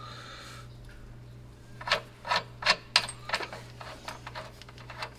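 Hand tools clicking and scraping on a C5 Corvette's outer tie rod end: a quick cluster of four sharp metal clicks about two seconds in, then lighter ticks, over a low steady hum.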